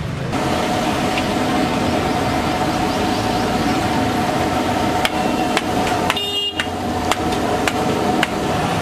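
Hot oil sizzling in a wide iron kadai as dough rounds deep-fry, under a steady hum. Several sharp metal clinks in the second half, from the slotted ladle knocking against the pan.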